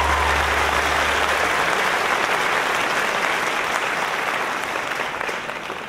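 Audience applauding, fading toward the end, with the last of the song's music dying away in the first second or so.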